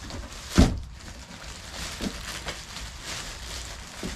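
Parts and packaging being pulled out of a cardboard box. A sharp knock comes about half a second in, followed by a few lighter knocks and rustling.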